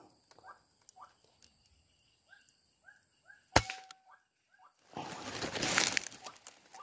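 A single shot from a suppressed PCP air rifle, one sharp crack about three and a half seconds in, amid a string of short repeated bird call notes. Near the end comes a burst of rustling and crunching, like movement through dry vegetation.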